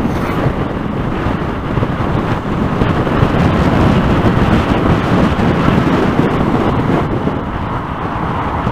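Wind rushing and buffeting over a motorcycle rider's helmet microphone while riding, a loud steady low rush with no clear engine note.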